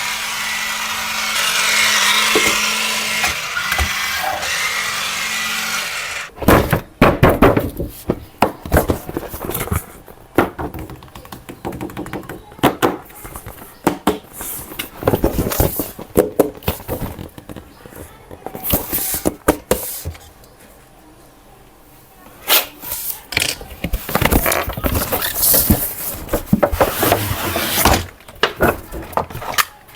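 A small electric motor whirring steadily for about six seconds, then stops. It is followed by rapid, irregular clicking and knocking of hard plastic parts being handled.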